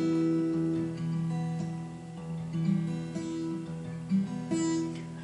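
Acoustic guitar playing a solo introduction, chords plucked and strummed and left ringing.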